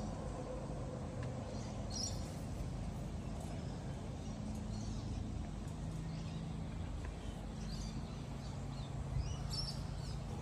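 Outdoor ambience: a few short bird chirps scattered over a steady low rumble.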